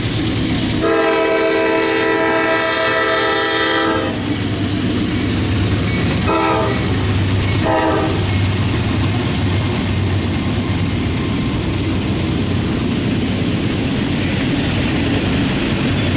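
Norfolk Southern freight locomotive's air horn sounding a chord in one long blast of about three seconds, then two short blasts a little over a second apart. The diesel locomotive and double-stack container well cars then rumble steadily past on the rails.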